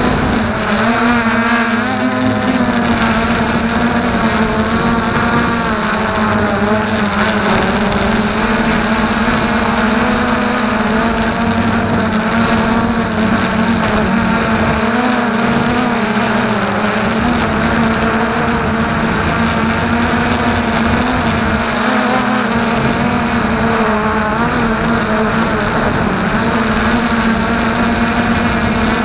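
Quadcopter's electric motors and propellers humming steadily in flight, heard close up through the camera mounted on the drone, with the pitch wavering slightly as the throttle shifts.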